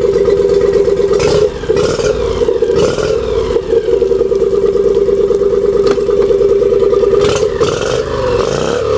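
Suzuki 25 hp four-stroke V-twin single-carb tiller outboard running steadily in neutral, with a few brief sharp knocks. Near the end its pitch wavers up and down as the throttle is worked.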